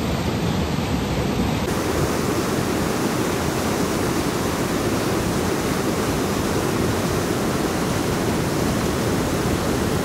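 Waterfall water rushing over the rocks at the falls' lip in a steady, unbroken rush.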